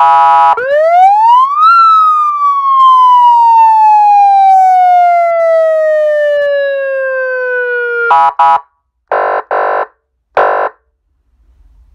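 200 W Signal Division vehicle siren unit sounding its tones: a short buzzy horn blast leads into one wail that rises quickly for about a second and then falls slowly over about six seconds. It then gives five short buzzy horn blasts, two pairs and a single.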